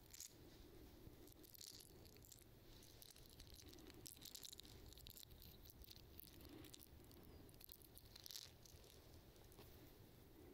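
Faint scraping of a hook sharpener against a fishing lure's treble hook in short bouts of strokes, with light metallic rattling of the hooks; the strongest scrape comes about eight seconds in.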